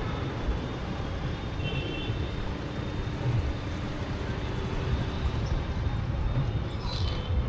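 Road traffic noise at a busy junction: a steady low rumble from the engines and tyres of motor scooters and cars.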